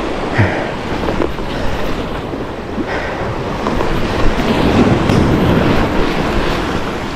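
Sea waves washing with wind buffeting the microphone, swelling a little about four to six seconds in.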